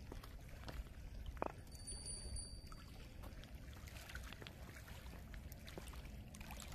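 Faint trickling and lapping of lake water at the shore, with a few light clicks.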